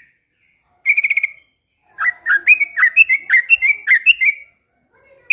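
Yellow-vented bulbul (trucukan) singing: a short, fast trill about a second in, then a run of quick, bubbling whistled notes, about four a second, that stops at about four and a half seconds.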